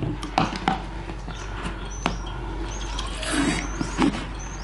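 A plastic meat-marinade injector being dipped into a jar and refilled with injectable butter. It makes several light clicks and taps, and a few short high squeaks in the second half.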